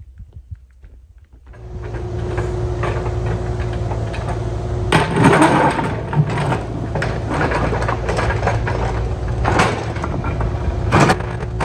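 A Kubota machine's engine comes in about a second and a half in and runs steadily with a low hum. Several loud clanks of the machine at work come over it.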